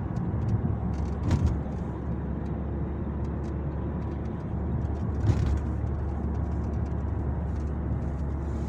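Cabin of a moving first-generation Volvo S80: a steady low drone from the road and exhaust, with faint, short, high chirping ticks scattered through it and a louder knock twice. The chirping is the creak in the dashboard under the windshield, which the owner takes for loose plastic or a poorly bonded windshield.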